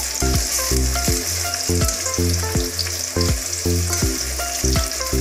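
Sliced onions frying in hot mustard oil in a steel kadai: a steady sizzle, with a metal spatula stirring them around the pan. Music with short plucked notes and a bass line plays underneath.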